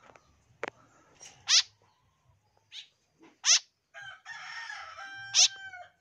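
A bird close by gives short, loud, high calls, three of them about two seconds apart. A rooster crows about two-thirds of the way through.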